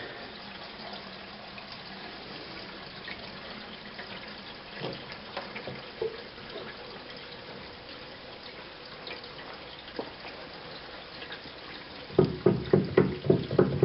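Faint, steady hiss of water in the household plumbing, with a few light ticks. Near the end comes a quick run of loud knocks.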